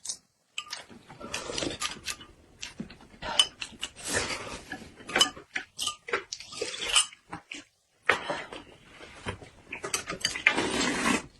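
Close-miked eating: chewing and mouth noises in irregular bursts, with sharp clicks of dishes or cutlery. There is a brief pause about two-thirds through.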